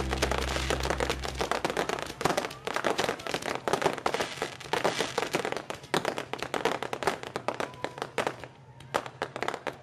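Fireworks crackling: a dense volley of sharp pops and crackles from bursting spark stars, thinning out toward the end. A low steady tone runs under the start and cuts off about a second and a half in.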